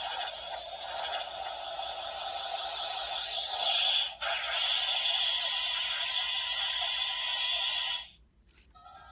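A sound effect played through the DX Orb Ring toy's small speaker: a steady rushing noise with a short break about four seconds in, cutting off suddenly near the end.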